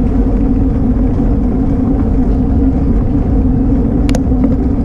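Steady wind buffeting and road rumble on a bicycle-mounted action camera as the bike rolls over asphalt, with one short sharp click about four seconds in.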